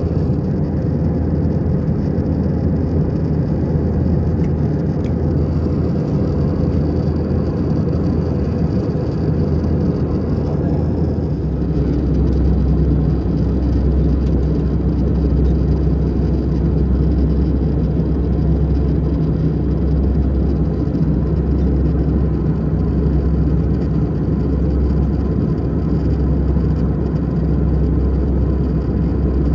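Cabin noise of an Airbus A320 in flight: a steady roar of engines and airflow with a deep drone. About a third of the way in the drone drops in pitch and gets slightly louder.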